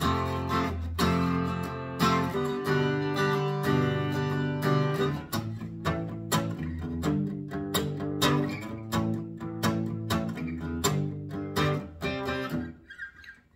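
Fender Acoustasonic Player Telecaster played through a small amp with its blend knob turned fully counterclockwise. Fingerpicked chords ring out, then quicker single notes, and the playing fades out near the end.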